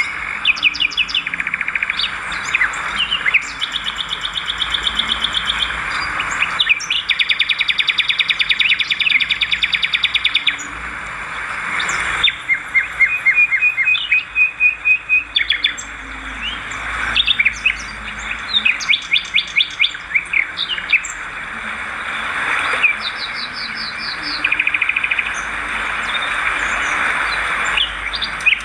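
Swiftlets twittering: many rapid, buzzy chirp trills and short repeated calls overlapping without pause, over a steady hiss.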